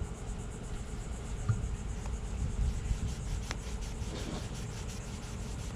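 A rag rubbing metal polish over a stainless-steel chain plate, a soft scrubbing with a few small clicks. Behind it is a faint, even high-pitched ticking and a low rumble.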